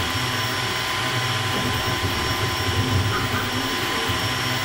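Creality K1 Max 3D printer running a print: a steady whirring of its fans, with a low hum that swells and fades in short stretches as the motors drive the print head.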